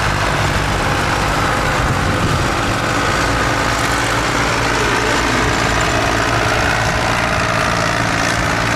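Tractor diesel engine running loudly and steadily.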